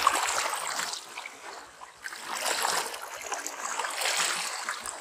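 Sea water washing over shallow reef rocks, surging and draining back in waves every second or two.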